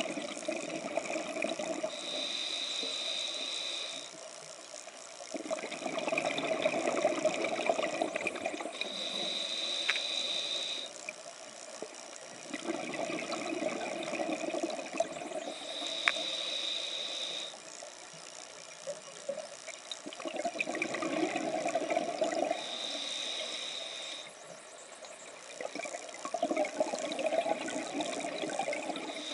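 Scuba diver breathing through a regulator underwater. A short hissing inhale through the regulator alternates with a longer, louder rush of exhaled bubbles, about every six to seven seconds, four full breaths.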